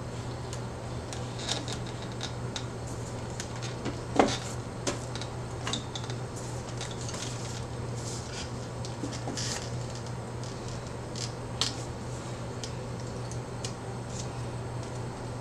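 Handling noise as an orchid's roots are pinned and tied onto a cork bark mount: scattered rustles, scrapes and small clicks, with a sharper knock about four seconds in and another near the end. A steady low hum runs underneath.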